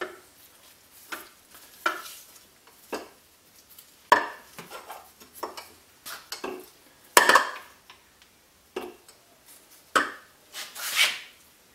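Metal engine parts of a 1956 Ariel Square Four clinking, knocking and scraping as the freshly split crankcase halves are handled: a string of separate knocks, the loudest about four and seven seconds in, with a longer scrape near the end.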